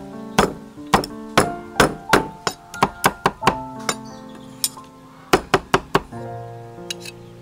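Cleaver chopping cooked pig head meat on a wooden chopping block: sharp chops about two to three a second, thinning out midway, then a quick run of four chops about five seconds in. Background music plays throughout and is heard alone near the end.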